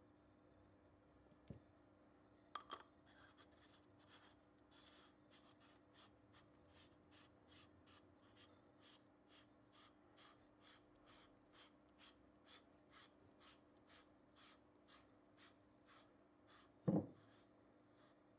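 Faint, regular light ticks, about two a second, from a regulator and valve assembly being hand-screwed into a Hatsan Flash PCP air cylinder. A few clicks come before it, and one sharper knock comes near the end.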